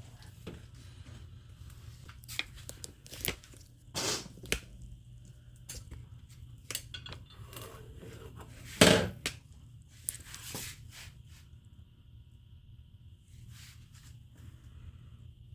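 Scattered clicks, scrapes and rustles of things being handled, with one loud knock about nine seconds in, over a steady low hum.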